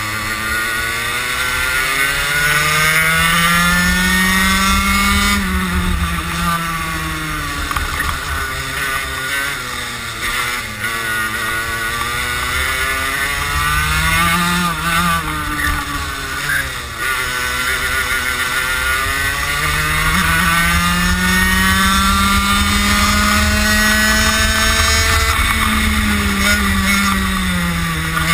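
Racing kart engine heard onboard at full throttle. Its pitch climbs steadily for several seconds at a time, then drops sharply as the driver lifts for corners, about four times in all.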